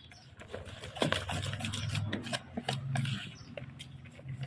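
Scraping and rubbing of duck larb being tossed and mixed, with scattered clicks, louder from about a second in until just past three seconds.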